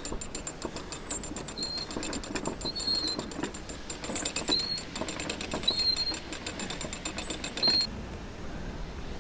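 Lock paddle gear being wound up with a windlass to let water out: the ratchet pawl clicks rapidly over the teeth, with a short high squeak about once per turn. The winding stops near the end.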